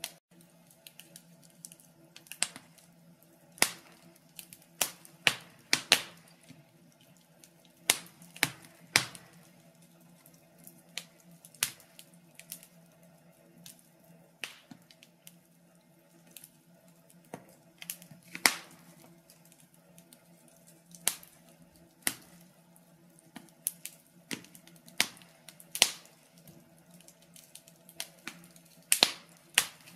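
Wood fire crackling and popping in a wood-burning stove, with irregular sharp pops of uneven loudness, about one or two a second. A faint steady low hum runs underneath.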